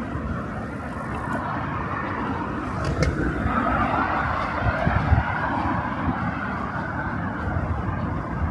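City street ambience dominated by steady road traffic noise, with a sharp click about three seconds in.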